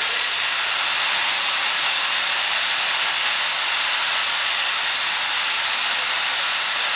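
Steady hiss of escaping steam, starting suddenly and holding level.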